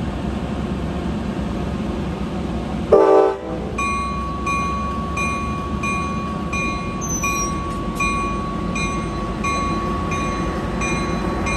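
Trinity Railway Express commuter train running at the platform with a steady rumble as it starts to move off. About three seconds in it gives one short, loud horn blast, then a bell rings steadily about once every 0.7 seconds.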